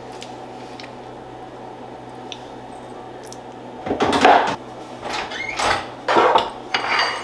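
A steady low hum, then from about four seconds in a run of five or so bursts of rustling and clattering as kitchen things are handled.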